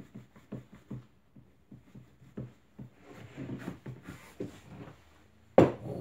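Light irregular clicking and tapping of a steel cat-perch frame and wires being worked by hand on a wooden workbench, with a stretch of rustling partway through, then one loud knock near the end as the frame is handled.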